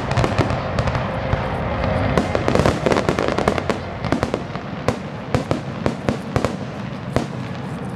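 Fireworks finale: a rapid barrage of shell bursts and crackling, the bangs coming several a second and thinning out toward the end.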